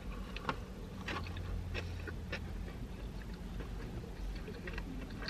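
Close-miked chewing of a mouthful of burger: soft wet mouth clicks and smacks about twice a second, stronger in the first half.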